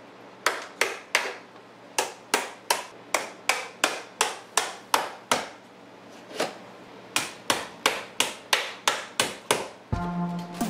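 A hammer tapping a flat pry tool in behind door-casing trim to work loose old compressed-paper molding: a quick run of sharp metal-on-metal taps, about three a second, with two short pauses. Background music comes in near the end.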